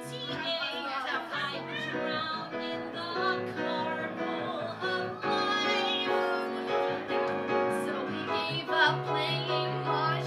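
Women singing a musical-theatre number with piano accompaniment.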